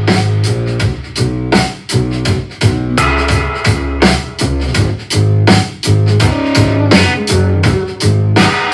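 Music with a steady drum beat, keyboard and a strong bass line, played through an LG XBOOM 360 XO3 omnidirectional Bluetooth speaker and recorded by microphone as a sound sample.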